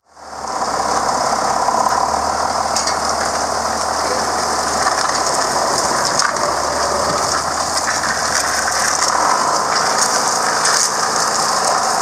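Tractor engine running steadily while a chain drags the worn, broken rubber track of a skid steer away across muddy ground, with a clatter of many small clicks throughout. The engine's low hum changes about nine seconds in.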